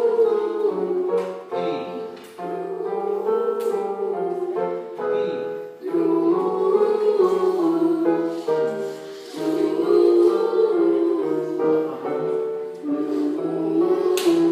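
Choir singing a vocal warm-up with piano accompaniment, holding sustained notes that shift in pitch every second or two.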